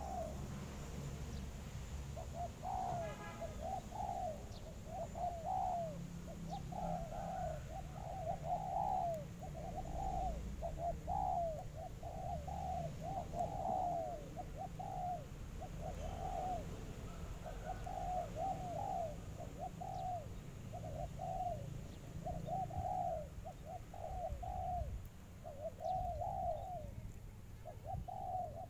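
Spotted dove cooing in a fast, unbroken string of short swooping notes, several a second, over a low wind rumble.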